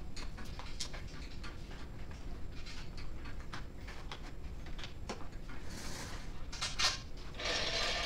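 Scattered light clicks and knocks of hands-on work in a shop, with a short rushing noise near the end.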